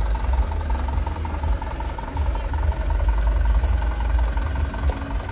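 Truck engine idling with a steady low rumble.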